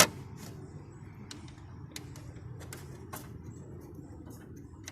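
Scattered light clicks and knocks of the air conditioner's plastic control knobs and levers being worked by hand, the sharpest click right at the start, over a low steady rumble.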